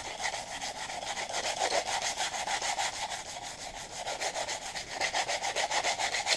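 Sandpaper rubbed by hand back and forth over a wooden hatchet handle in quick, even strokes, several a second, knocking loose fibres off freshly cut grip marks. The sanding stops suddenly at the end.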